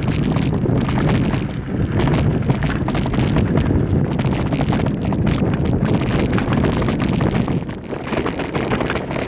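Wind buffeting the microphone over the rumble and clatter of a bike rolling fast over rough trail ground, with many small rattles and knocks.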